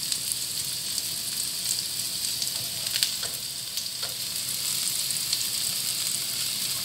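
Enoki mushrooms sizzling steadily in hot oil in a nonstick wok, with a few short spatula knocks against the pan about three and four seconds in.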